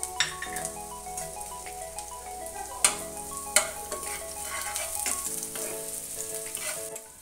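Chopped garlic sizzling in hot oil in a frying pan as it is stirred, with a few sharp clicks of the spatula against the pan. Soft background music with sustained notes plays underneath.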